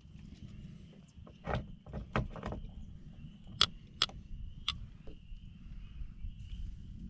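Metal kitchen tongs clicking and clacking several times as sausages are set into buns on an enamel plate, over a steady high-pitched trill and a low background rumble.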